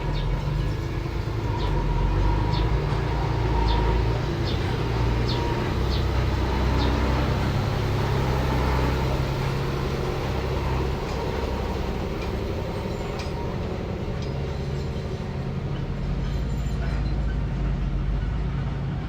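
Diesel engine of heavy earthmoving machinery running steadily with a low rumble. A string of light metallic clinks comes in the first several seconds.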